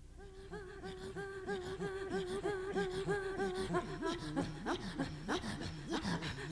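Inuit throat singing fades in: a held sung tone pulsing about four times a second, which breaks about halfway through into quick low grunting sounds with a few sharp upward swoops.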